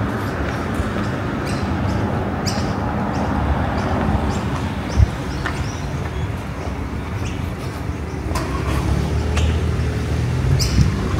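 Road traffic running steadily with short bird chirps over it, and a single thump about five seconds in. Near the end a passing vehicle's engine grows louder.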